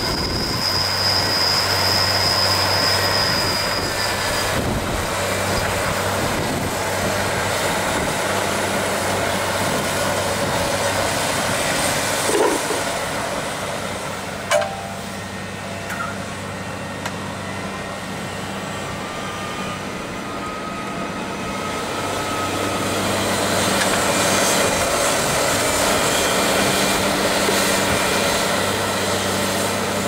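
Fendt 718 Vario tractor's six-cylinder diesel engine running steadily under load while pulling an eight-furrow reversible plough, with a couple of sharp knocks about halfway through and the engine growing louder near the end.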